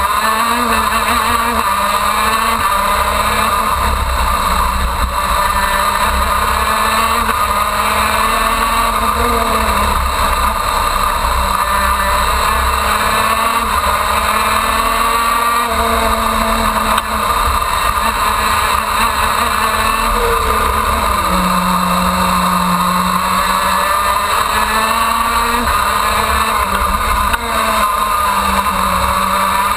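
KZ2 shifter kart's 125 cc two-stroke engine at racing speed, heard onboard. Its pitch rises and falls over and over as the kart accelerates down the straights and slows into the corners.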